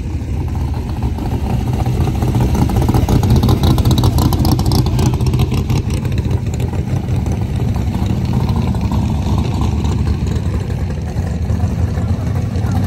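Hot-rod engines running loud as cars drive slowly past, the sound swelling about four seconds in and again near the end as another car approaches.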